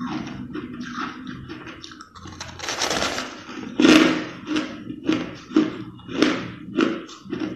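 Crushed ice being bitten and chewed close to the microphone: a run of crisp crunches several times a second, with a longer crunching scrape about three seconds in and a loud crunch just after.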